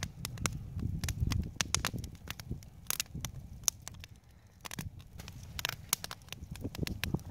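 Wood campfire crackling, with frequent sharp pops over a low rumble.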